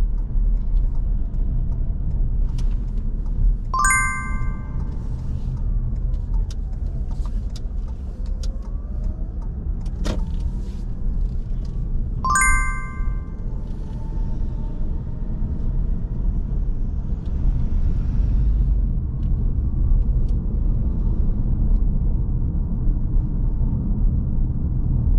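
Steady low road and engine noise inside a moving car's cabin. A short ringing chime sounds twice, about eight seconds apart, with a sharp click between them.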